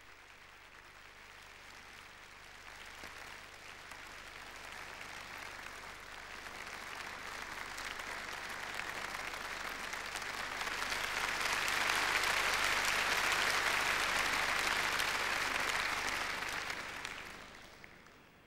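Large hall audience applauding. The clapping swells gradually to a peak about two-thirds of the way through, then dies away near the end.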